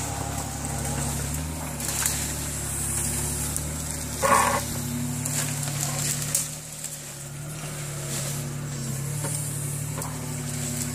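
Hitachi mini excavator's diesel engine running steadily, its note shifting slightly as the boom and bucket are worked. A brief louder sound cuts in about four seconds in.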